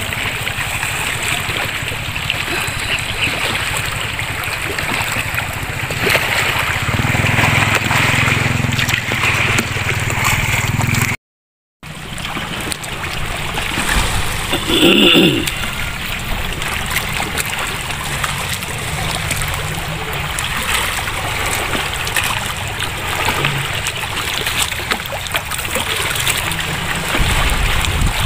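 Small waves lapping and gurgling against the shore and pilings, over a steady low rumble. The sound drops out completely for about half a second near the middle, and a brief louder sound cuts in about halfway through.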